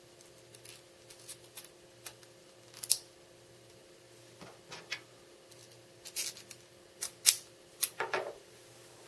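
Neodymium ring magnets and steel washers clicking together as they are stacked by hand onto a stainless screw: a dozen or so sharp metallic clicks at uneven intervals, the loudest about three seconds in and about seven seconds in.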